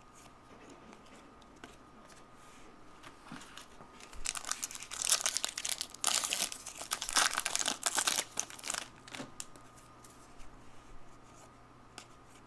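Foil wrapper of an Upper Deck hockey card pack being torn open and crinkled by hand. The crackling is loudest from about four to nine seconds in, with quieter rustling of the wrapper and cards before and after.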